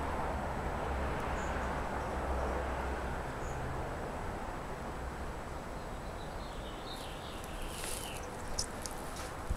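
Outdoor background noise: a steady hiss that slowly fades, with a low rumble in the first few seconds. A few faint high chirps and small clicks come near the end.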